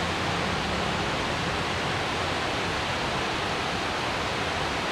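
Small waterfall pouring down a rock face into a pool: a steady rush of falling water.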